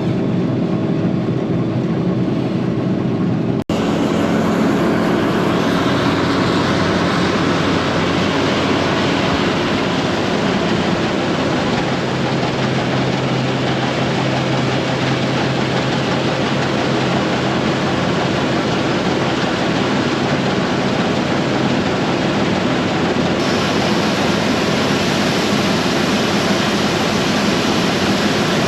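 Heavy farm machinery running steadily, with a sharp break in the sound about four seconds in.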